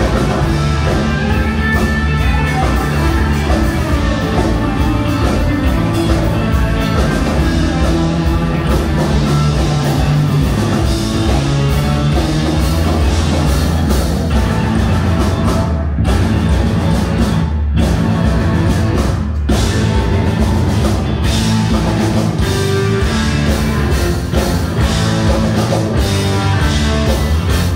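A live band playing rock music, loud and continuous, with a heavy low end.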